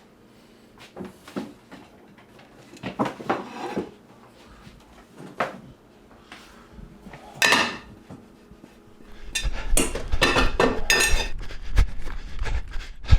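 Dishes and cutlery clinking and knocking, scattered at first, then a denser, louder clatter over the last few seconds.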